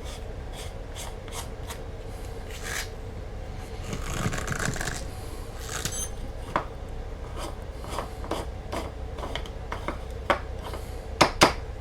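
Screw-down pill crusher being twisted shut, its threaded cap grinding and crushing pill pieces, a rubbing scrape with scattered small clicks and crackles. Two sharper clicks come near the end.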